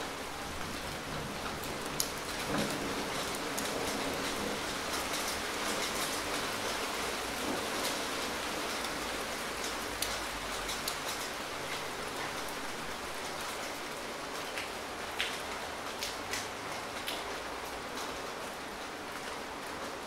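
Steady rain falling, a continuous hiss of many drops with occasional sharper splats of single close drops.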